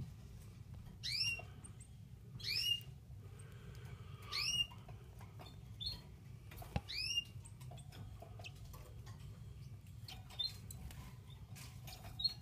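Newly hatched green singing finch chicks peeping: about five thin, high peeps in the first seven seconds, each rising then falling in pitch, with fainter ones near the end. A low steady hum and faint clicks lie underneath.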